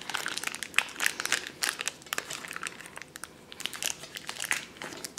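Crinkling of a shiny plastic toy blind bag as fingers open it and work it apart: an uneven run of sharp, crisp crackles.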